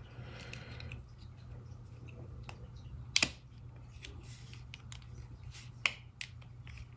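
Sharp plastic-and-metal clicks as a first-generation iPod nano is pressed back together and its parts snap into place: two distinct snaps about three seconds apart, with a few fainter ticks, over a low steady hum.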